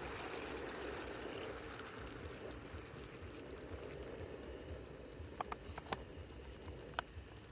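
Kadhai chicken gravy simmering in the pan: a steady, watery hiss that eases slightly, with a few sharp pops or clicks in the second half.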